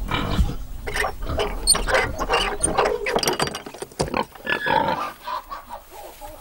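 A domestic pig grunting repeatedly in a run of short, rough calls that thin out near the end.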